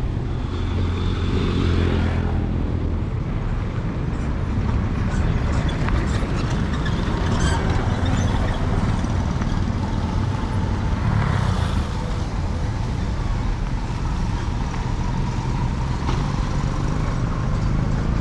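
Steady road traffic noise: motor vehicles running and passing, with a louder vehicle going by about a second in and another near the middle.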